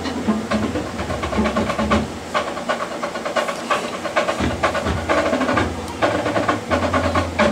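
Marching drumline of snare drums, tenor drums and marching bass drums playing a fast, dense rhythm, rapid stick strokes over low bass-drum tones.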